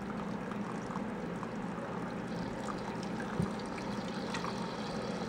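Tap water running from a kitchen faucet into a plastic instant-noodle container, filling it to the fill line: a steady pouring trickle, with one light knock about three and a half seconds in.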